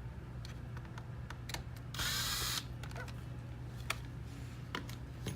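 Screws being taken out of a car navigation unit's metal LCD frame: scattered light clicks and taps of the tool and screws, with one short whirring burst from a powered screwdriver about two seconds in, over a steady low hum.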